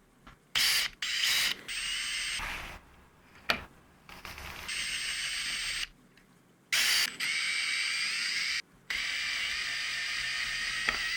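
A small electric tool motor running in repeated bursts of half a second to three seconds, each with a steady whine and a mechanical whirr, stopping and starting again about seven times.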